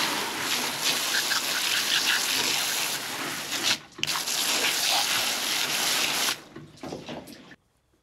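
Hose water spray hitting a fish and a stainless steel bench, blasting off loosened scales: a steady gush with a short break about four seconds in, then stopping a little after six seconds.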